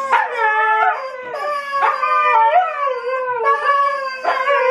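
Several Siberian huskies howling together: overlapping drawn-out howls that slide in pitch, with fresh howls breaking in every second or two.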